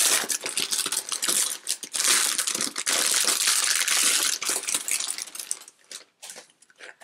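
Plastic wrapping crinkling and rustling as it is handled. The noise dies down to a few light taps and rustles about six seconds in.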